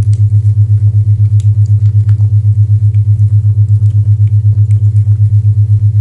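Low humming isochronic tone pulsing on and off rapidly and evenly, several beats a second, with faint fireplace crackles scattered over it.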